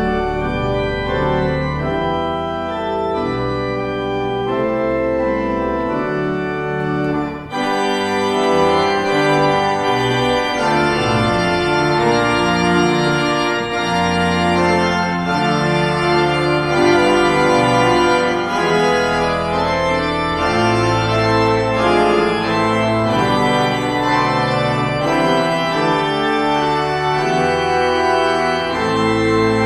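Church organ playing slow, sustained chords. About seven seconds in it breaks briefly, then continues fuller and brighter.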